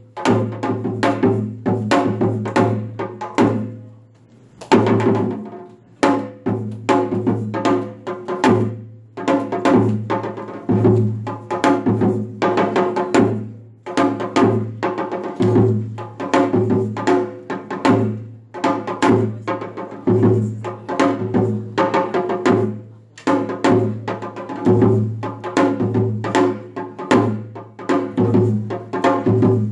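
Janggu, the Korean hourglass drum, played solo: fast sharp stick strokes on the high-pitched head over deep strokes on the low-pitched head, in a driving rhythm. The playing thins to a brief lull about four seconds in, then resumes at full pace.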